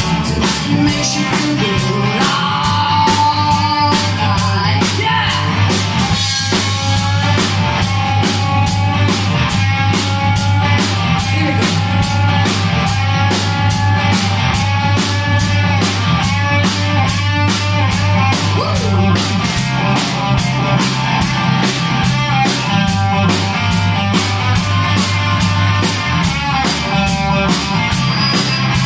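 Live rock band playing loud: a woman singing over electric guitars and a steady drum-kit beat.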